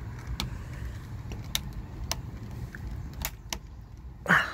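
Sharp, scattered clicks of a thin tool prodding and scraping at a door latch in the gap between door and frame, an attempt to slip the lock, over a low steady rumble. A brief, louder rasp comes near the end.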